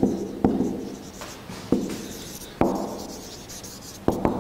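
Marker pen writing on a whiteboard: irregular sharp taps of the tip on the board, each fading quickly, with scratchy strokes between them.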